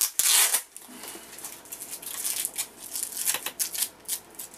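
White plastic mailing envelope being torn open by hand: a loud rip right at the start, then a run of short crinkles and tears as the plastic is pulled apart.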